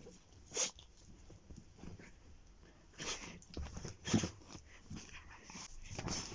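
A muzzled dachshund making a few short, separate noises while play-fighting with a person's hand.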